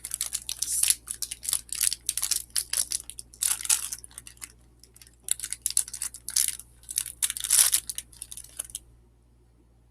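A plastic snack wrapper being crinkled and torn open, in a run of quick irregular rustles that stop about nine seconds in.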